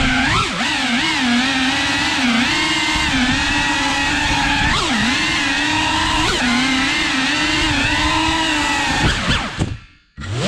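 FPV quadcopter's brushless motors and propellers whining, the pitch rising and falling as the throttle changes, with a couple of quick sweeps around the middle. Near the end the whine drops away almost to nothing, then comes back.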